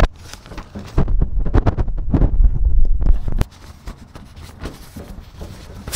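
A 10 mm socket on an extension working a nut inside a Toyota HiAce's sheet-metal tailgate, making a run of irregular clicks and metal knocks with a low rumble. The sounds are loudest for a couple of seconds starting about a second in, then fainter and scattered.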